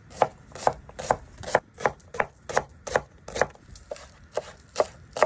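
Chef's knife chopping onion and then green onions on a plastic cutting board: a steady run of sharp knife strikes on the board, about two to three a second.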